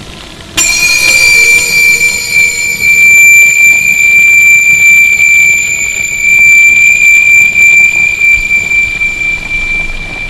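A loud, high-pitched squeal that cuts in suddenly about half a second in and holds one steady pitch, rising and falling a little in loudness, over a low rumble.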